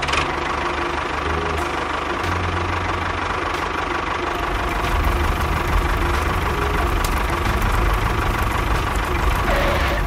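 Tractor engine running steadily at low speed, a low knocking rumble that goes on unbroken while the toy tractor drives.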